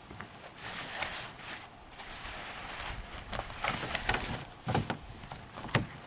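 Rustling and scraping of nylon fabric as a life jacket is stuffed into a kayak's hull under its cockpit cover, with two dull thumps against the plastic hull near the end.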